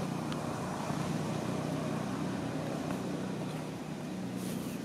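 Steady low hum of a running engine, easing off toward the end, with a brief high hiss just before it ends.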